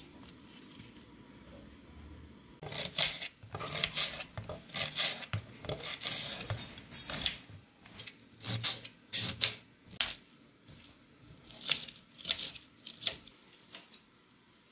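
Knife cutting a red cabbage on a stainless steel tray: crisp, irregular cuts with the blade tapping the metal. The cutting starts about two and a half seconds in and dies away near the end.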